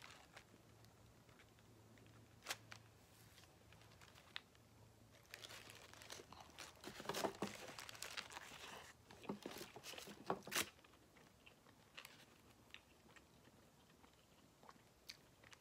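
Eating a paper-wrapped breakfast burrito: faint mouth sounds of biting and chewing, with the wrapper crinkling. The sounds are mostly sparse small clicks, with a busier run of rustles and bite noises in the middle.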